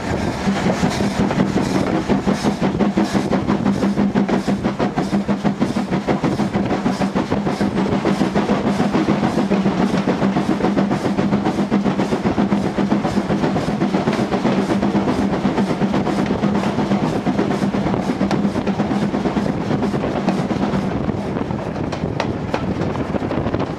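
Steam locomotive running, its exhaust beats making a rapid, even rhythm of several chuffs a second. A steady low hum runs underneath and fades out near the end.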